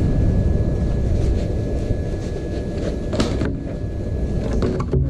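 A steady low rumble with a thin steady whine above it, broken by a few light clicks.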